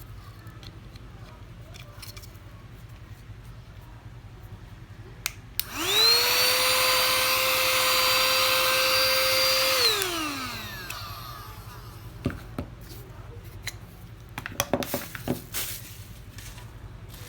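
2-in-1 portable vacuum cleaner switched on about six seconds in, its motor whining up to speed and running steadily for about four seconds, then switched off and winding down with a falling whine. Scattered clicks and knocks of handling come before and after.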